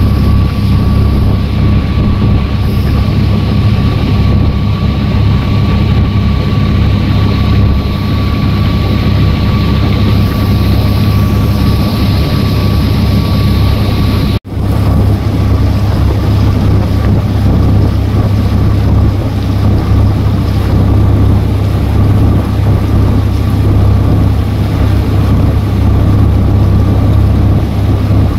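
Small fibreglass passenger boat's engine running steadily under way, with wind on the microphone. There is a brief break about halfway through, and a thin steady whine in the first half stops at that break.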